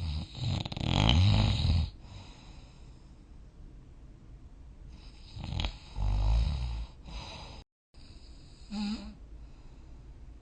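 A sleeping person snoring: a long snore at the start, another about five to seven seconds in, and a short one near nine seconds, with most of the sound low in pitch.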